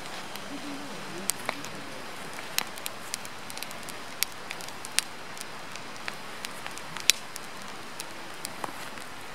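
Firewood burning in a campfire, crackling: sharp pops and snaps at irregular intervals over a steady hiss, the loudest pop about seven seconds in.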